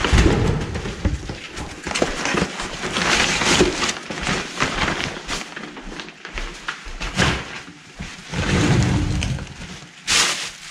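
Plastic and paper bags rustling and crinkling as hands dig through a garbage can and lift bags out, coming and going in loud stretches.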